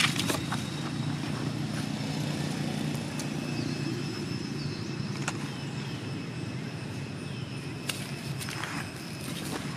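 A steady low hum of a running engine, with a few faint clicks.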